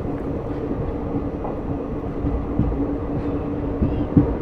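Passenger express train running along the track, heard from on board: a steady rumble of wheels on rails with a faint steady drone, and a couple of sharp knocks near the end.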